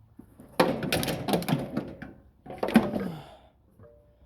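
Two bursts of knocks and clatter from equipment being handled and set down, the first longer than the second.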